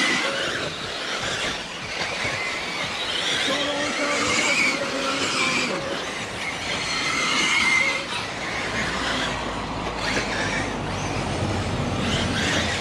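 Radio-controlled model cars racing on an off-road track: their motors whine, rising and falling in pitch as they speed up and slow down.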